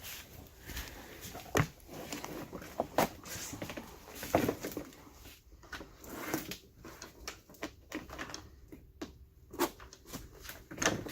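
Scattered, irregular clicks and knocks of plastic being handled: parking sensors being wiggled and pulled out of their clips in the bumper.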